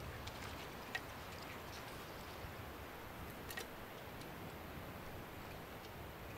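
Quiet outdoor ambience with a low steady hiss and rumble, broken by two small clicks, about a second in and again a little after the middle.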